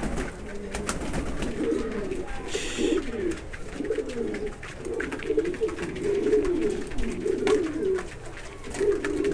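Pouter pigeons cooing, many low coos overlapping without a break, with a short rustle about three seconds in.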